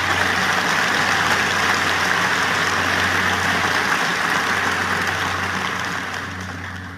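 Large auditorium audience applauding, a dense steady clapping that dies away near the end.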